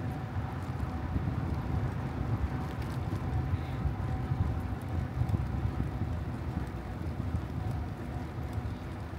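Steady low rumble of wind buffeting the microphone during a bicycle ride, with a few faint clicks.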